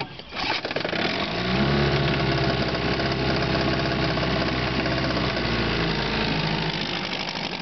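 1956 Evinrude Lightwin 3 hp twin-cylinder two-stroke outboard motor running under way. It picks up speed during the first second or so, then holds a steady speed. It is on a test run after a rebuild with new ignition, carburetor kit, water pump impeller and lower-unit bearings and seals.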